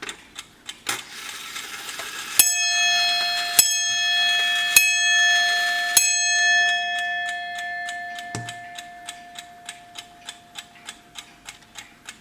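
Vintage German Wehrle 'Three In One' mechanical clock striking four times on its bell, about a second apart, each stroke ringing on and fading. A rushing noise builds before the first stroke, there is a low knock near the end of the ringing, and the movement ticks steadily about four times a second before and after.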